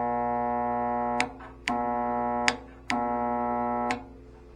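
Delta bandsaw's electric motor humming loudly under power without turning over, the steady buzzing hum cut off and switched back on a few times, with a sharp switch click at each change. It is the stalled hum of a motor that cannot start, which turned out to be from a melted start capacitor.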